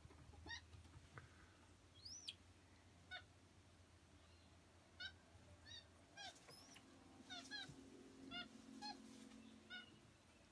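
White-faced capuchin monkeys giving faint, short, high chirping calls, about a dozen spread unevenly, some in quick pairs, with one longer rising whistle about two seconds in.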